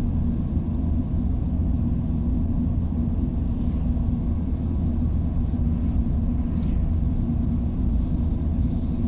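Steady low rumble of a vehicle in motion, like road noise heard inside a car.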